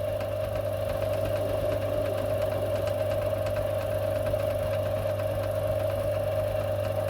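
Small metal-turning lathe running steadily while the tool takes a cut on a shaft, a constant motor hum with faint ticks.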